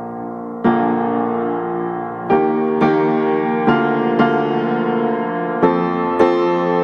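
Background music: a piano playing slow sustained chords, with fresh notes struck every half second to second and a half.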